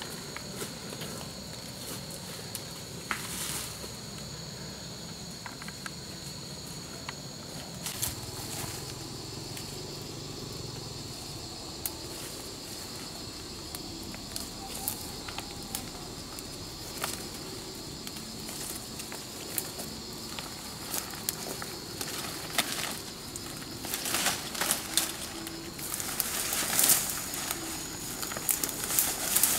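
A steady high insect drone runs on, with crackling rustles of leaves and snapping stems as wild greens are picked by hand from the undergrowth. The rustling gets louder and busier near the end.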